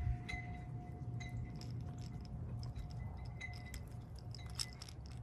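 Light metallic clicks and ticks of pliers working a hook out of a bass's mouth, over a low steady rumble of wind on the microphone.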